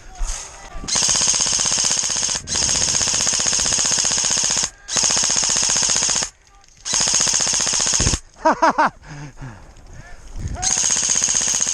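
Airsoft gun firing long full-auto bursts, four sustained strings of rapid clattering shots with short pauses between them.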